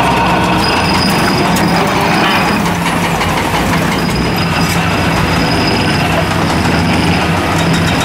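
Excavator-mounted Xcentric Ripper JGXR40, an eccentric-shaft vibrating ripper, hammering into limestone with a rapid, continuous rattle, over the excavator's engine running under load.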